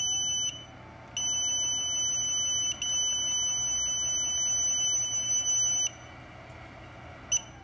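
Bench power supply's electronic buzzer sounding a steady high-pitched tone while it feeds current into a shorted line on a Samsung Galaxy S9 Plus board. The tone breaks off twice as the supply is switched off and on, stops about six seconds in, and gives one short blip near the end.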